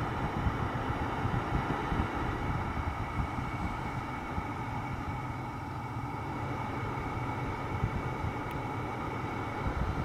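Steady low hum inside a VW Golf 7's cabin while the Climatronic system runs its flap-actuator calibration, with no distinct clicks or knocks standing out.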